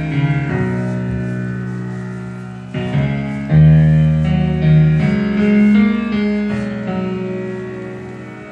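Music with sustained keyboard chords and a strong bass line played loud through a home-built four-way tower speaker driven by a 500-watt-per-channel stereo amplifier, as a sound test; fresh chords come in every second or so and fade between them.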